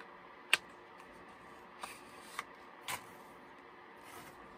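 A small cardboard makeup box being opened and handled: a few sharp clicks and taps with light rustling. The sharpest click comes about half a second in, with three softer ones around the middle.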